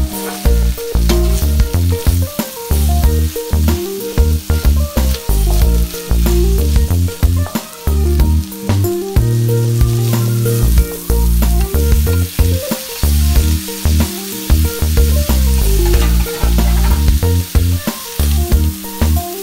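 Food sizzling in a hot wok while a spatula stirs it, scraping against the metal, under background music with a heavy bass line.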